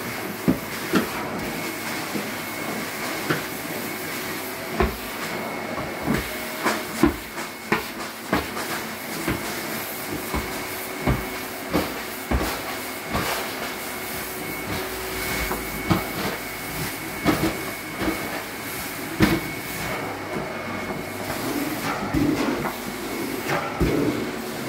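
Carpet extraction wand running over carpet: a steady hiss of suction with a faint held whine, broken by frequent irregular knocks and clicks as the wand is worked back and forth.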